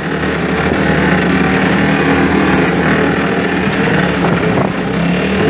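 A motorboat's engine running steadily while under way, with wind and water noise over it.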